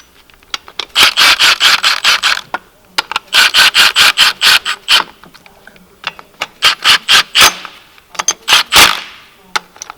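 Ratchet wrench clicking rapidly as it runs down the AC compressor's mounting bolts, in four short runs with brief pauses between them.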